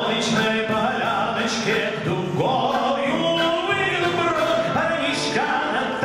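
A man singing a Soviet-era lyrical song with a military brass band accompanying him.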